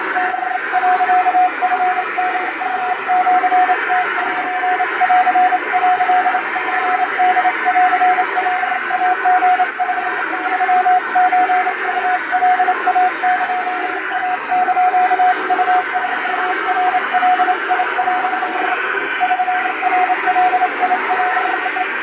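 Japanese wabun Morse code sent fast on an electronic keyer: one steady mid-pitched beep switched on and off in rapid dots and dashes, over a band of radio static, with faint clicks.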